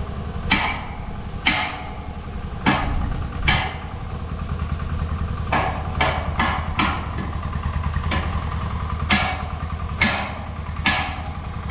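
A machine's engine running steadily at a construction site, with about ten sharp knocks at irregular spacing, like hammer blows, over it.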